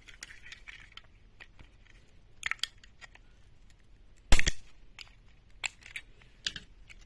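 Plastic parts of an opened wall socket being worked apart by hand: scattered small clicks and scrapes, with one loud sharp snap a little past halfway as a piece comes free.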